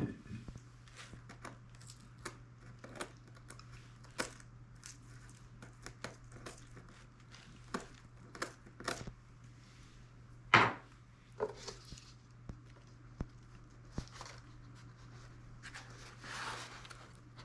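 Scattered light clicks and taps of a balsa patch being handled and pressed into a foam wing, with one sharper knock about ten and a half seconds in and a soft rubbing near the end.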